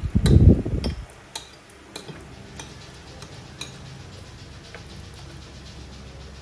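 Metal spoon and fork clinking and scraping on a ceramic plate, a string of light clicks about every half second. A dull low thump right at the start is the loudest sound.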